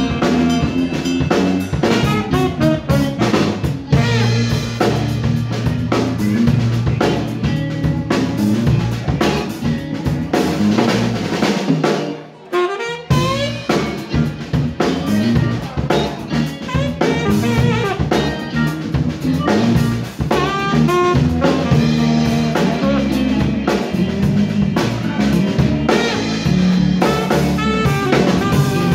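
Live funk band playing: tenor saxophone over electric bass, electric guitar and a drum kit with snare rimshots. The band stops briefly about twelve seconds in, with a rising slide, then comes back in.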